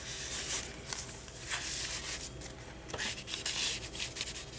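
Paper rustling and rubbing as tags and pages of a handmade junk journal are handled and a paper tag is slid into a paper pocket, with a few light taps.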